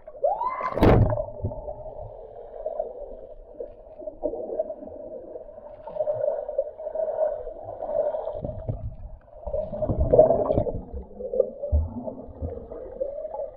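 A splash about a second in, then muffled rushing and gurgling river water, as heard with the microphone underwater, swelling louder near the end.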